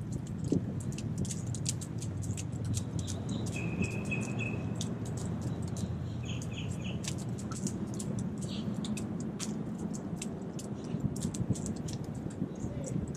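Sharp irregular clicking, a few clicks a second, with short bird chirps about four and six seconds in, over a steady low rumble of wind and water.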